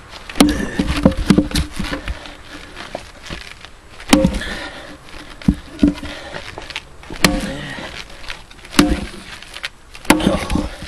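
Leveraxe splitting axe striking a firewood round again and again: about five heavy, sharp chops a second or more apart, with lighter knocks between them as the wood is levered apart.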